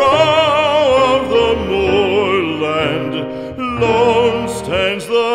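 Music: a solo singer with a wide, operatic vibrato holds long notes of a slow, sad ballad over a soft accompaniment, with a brief break between phrases about three seconds in.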